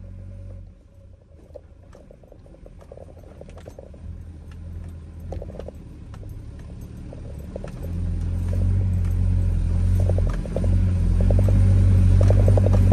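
A motor vehicle's engine running as it crawls over a rough dirt track, with scattered knocks and rattles from the bumpy ground. The engine grows much louder about eight seconds in and again near the end as the vehicle heads up the slope.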